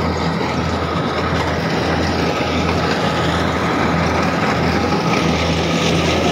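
Farm machine's engine running steadily close by: a constant deep hum with a faint steady whine above it.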